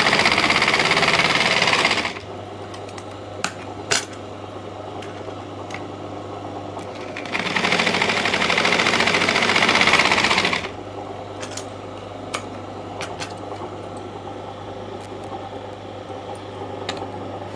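Domestic sewing machine stitching through fabric in two runs, one that stops about two seconds in and another of about three seconds in the middle. Between the runs there are a few light clicks over a steady low hum.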